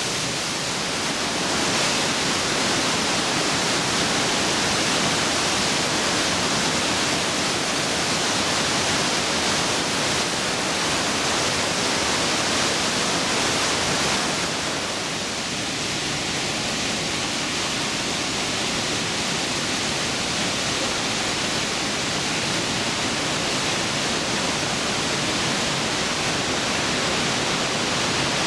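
Glacier-fed Trümmelbach Falls plunging through a rock gorge inside the mountain: a loud, steady rush of falling water, slightly duller about halfway through.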